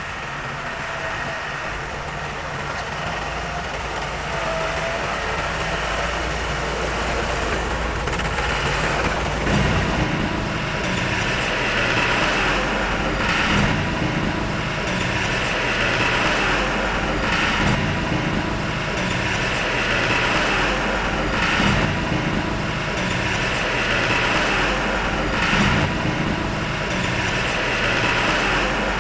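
Heavy diesel engine of earthmoving machinery running under load. It grows louder over the first ten seconds, then surges in a regular cycle about every four seconds.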